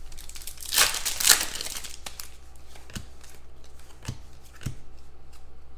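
Football trading cards being handled and shuffled by hand. A papery rustle comes a little under a second in, followed by a few light clicks and taps as cards are moved about.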